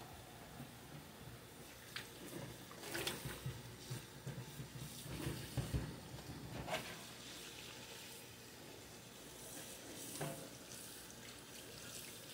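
Faint water running at a kitchen sink while porcelain dishes are washed, with a few light knocks and clinks of the dishes.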